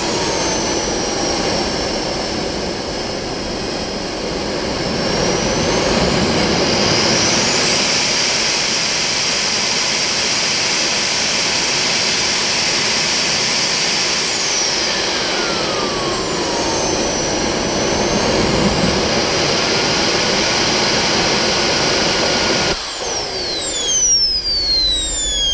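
Xicoy X120 model turbojet engine running on a test stand. Its whine falls to idle, spools up to full power of about 150,000 rpm and holds there for several seconds, then drops back and climbs partway. About 23 seconds in the engine is shut off and its whine falls steadily as the turbine winds down.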